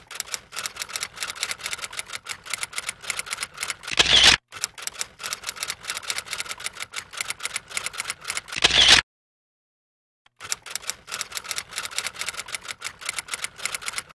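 Typewriter sound effect: rapid key clacks, about eight to ten a second. Each run ends in a louder sweep, twice, with a short gap before the clacking starts again.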